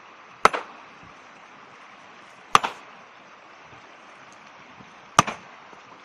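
A hammer striking a river boulder three times, sharp cracks about two to three seconds apart, each with a short ring, over the steady rush of the river. This is hammer fishing: the blows on the rock are meant to stun fish sheltering beneath it.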